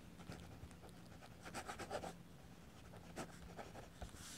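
Faint scratching of a pen on paper as a signature is written in quick strokes, busiest about one and a half to two seconds in, with another short flurry a little after three seconds.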